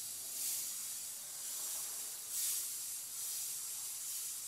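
Iwata Eclipse airbrush hissing as compressed air at about 80 PSI sprays opaque white paint, mostly air with a little paint. The hiss swells twice, about half a second in and, louder, about two and a half seconds in.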